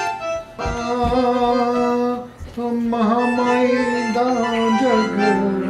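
Portable electronic keyboard played with held, sustained notes and chords, the notes changing every second or so, with a man singing along in a wavering voice.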